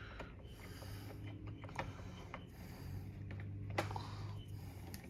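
Faint small metal clicks and taps of a replacement charging handle being screwed onto a Hi-Point carbine, with one sharper click near the end, over a low steady hum.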